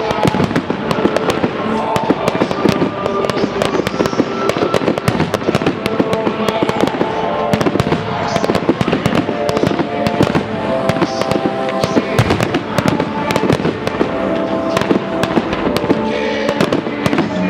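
Fireworks display: a dense, continuous run of bangs and crackles from aerial shells bursting, with music playing underneath.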